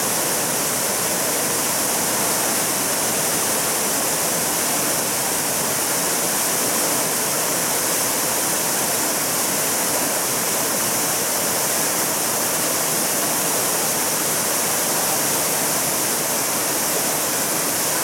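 Tiered waterfall pouring over rock ledges into a shallow pool: a steady rush of falling water.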